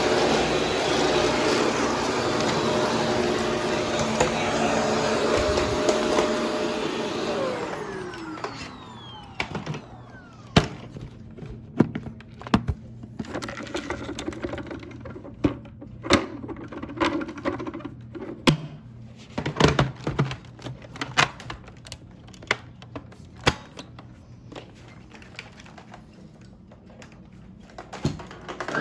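Upright vacuum cleaner running, then switched off about seven seconds in, its motor winding down with a falling whine. After that, a quieter stretch of scattered clicks and knocks.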